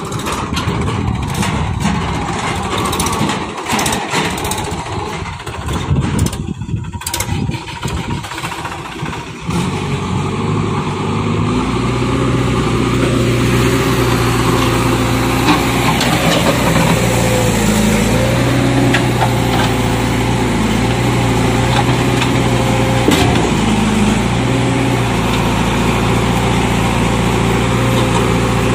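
Diesel engines of a Mahindra tractor and a JCB 3DX backhoe loader running. For about the first ten seconds the sound is a rough, uneven rumble, then it settles into a steady idling hum.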